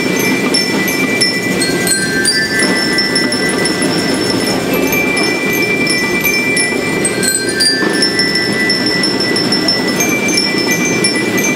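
School rhythmic band playing: metal bell lyres carry the melody in held, ringing notes over the band's snare drums and timbales.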